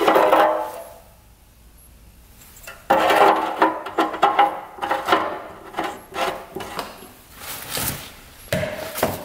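Tools and metal parts being handled on a workbench: a clatter at the start, a pause, then a run of irregular knocks and scrapes from about three seconds in.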